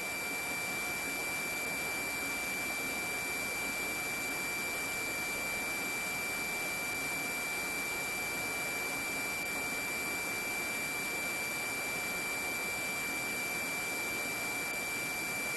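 Steady electronic hiss with a constant high-pitched whine and fainter steady tones: the open radio or intercom audio feed idling between transmissions.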